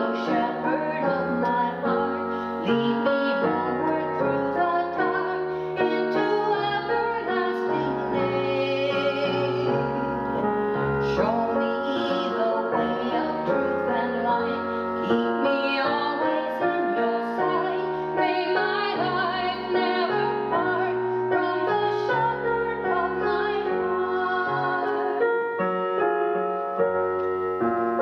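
Background music: piano with a woman singing.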